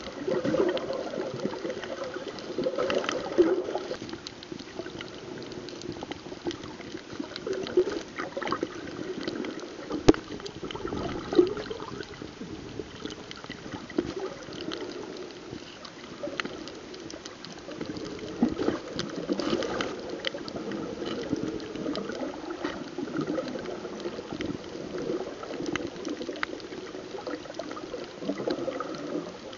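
Muffled underwater water noise picked up by a snorkeler's camera: uneven sloshing and gurgling, with scattered sharp clicks.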